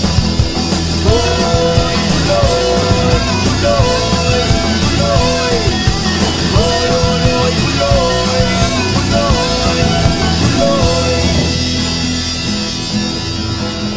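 Rock song with a singing voice sliding between notes over guitars and drums.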